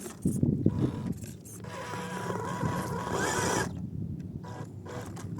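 MN128 1/12 RC crawler working over an obstacle: its electric motor and gearbox whine in on-and-off bursts, with a cluster of clattering knocks from the truck on the terrain about half a second in.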